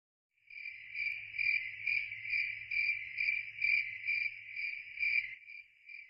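Cricket chirping, a steady high trill that pulses about twice a second, starting about half a second in and easing slightly near the end, over a faint low hum.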